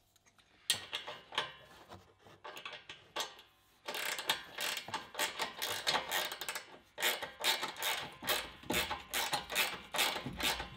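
Ratcheting spanner clicking as an M8 bolt is wound into the air suspension reservoir's mounting bracket. There are scattered clicks at first, then fast, continuous clicking from about four seconds in.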